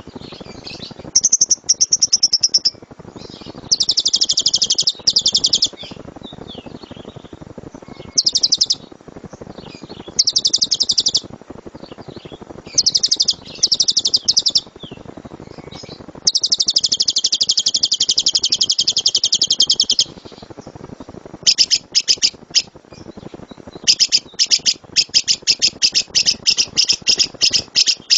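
Lovebird singing in shrill, very rapid trills, the drawn-out 'tembakan' bursts that lovebird keepers prize. The trills come in bursts of one to two seconds, with one long burst of about four seconds past the middle, and near the end they change to a quick run of separate chirps.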